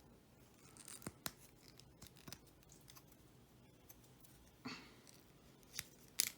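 Faint, scattered clicks and light scratching of a small plastic Transformers Micromaster figure being handled and its parts moved as it is transformed.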